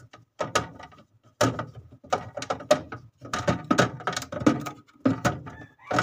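Plastic freezer rack of a one-door Polytron refrigerator creaking and clicking as it is twisted and worked loose from its mounts: a long run of sharp cracks and knocks, sparse at first and then dense.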